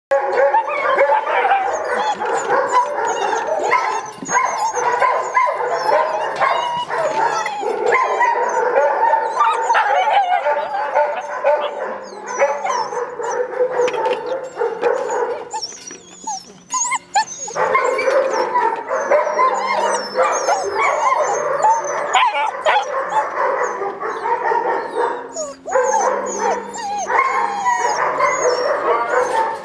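A litter of German Shepherd puppies barking, yipping and whining over one another almost without pause, with a short lull about halfway through.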